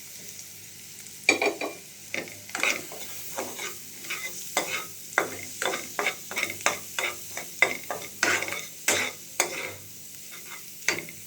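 A spatula scraping and knocking in a pan in irregular strokes, about two or three a second, as noodles with fried potato and carrot are stir-fried, over a faint sizzle.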